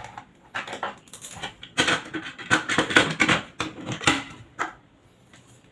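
Rapid clicking and clattering of small hard plastic and metal parts being handled, dying away near the end: multimeter test leads and probes being moved and set against a power outlet.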